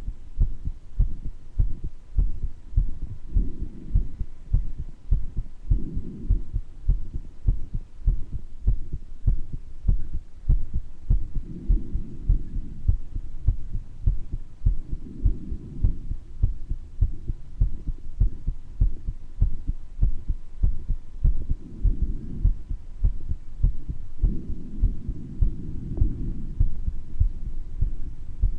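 A human heartbeat with a heart murmur, beating steadily in low, regular thumps. Breath sounds swell and fade every few seconds over the beats.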